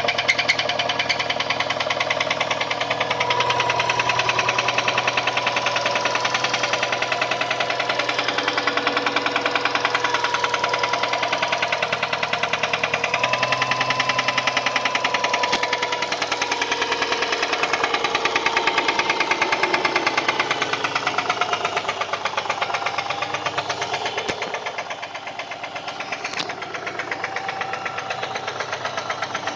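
Subaru EJ204 2.0-litre flat-four engine running with a rapid, even knock at every revolution: a connecting-rod knock from a spun big-end bearing on cylinder 1. The engine speed wavers slightly, and it runs a little quieter for a few seconds past the middle.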